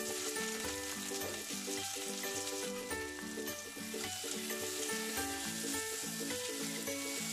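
Freshly added chopped onions sizzling in hot oil in a kadai while being stirred with a spatula, with background music playing underneath.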